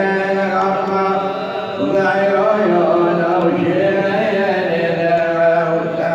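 A male voice chanting a nawha, a Shia lament, in a slow melodic line with long held notes over a steady low drone.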